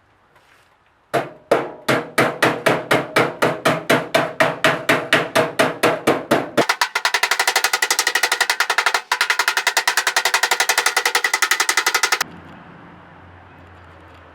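Rapid, rhythmic hammer blows on sheet steel, about five a second. About halfway through they turn faster and ring brighter, then they stop suddenly.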